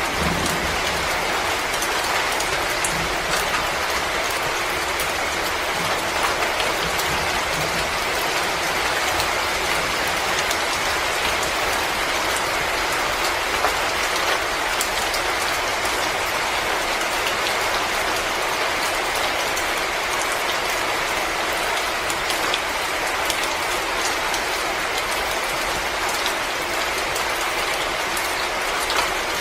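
Fireplace crackling: many small pops and snaps scattered over a steady hiss.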